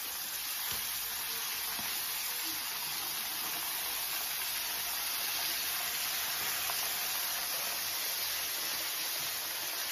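A flour-coated whole chicken frying in a pan of hot sunflower oil, the oil sizzling steadily.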